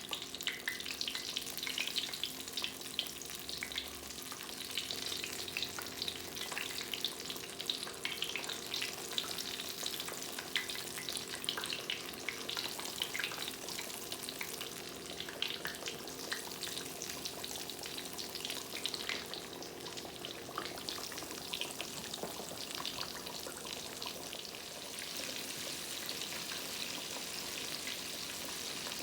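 Cornmeal-coated tomato slices frying in hot oil, a dense, steady crackle of sizzling.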